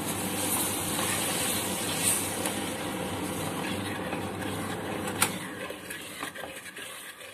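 Sugar, ghee and milk heating in a pot and stirred with a wooden spoon: a steady sizzle as the sugar melts into a syrup, with one sharp tap a little after five seconds in, fading toward the end.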